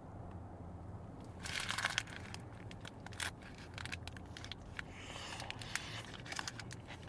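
Shawarma wrapper crinkling and rustling as it is handled, with scattered small clicks; the loudest crinkle is about one and a half seconds in, another around five seconds in.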